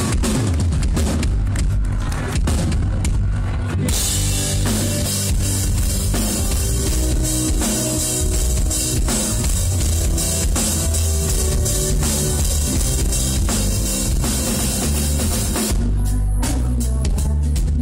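Live band playing an instrumental passage, recorded on a phone: a drum kit with bass drum and snare over a steady low bass. Cymbals wash in about four seconds in and drop out near the end.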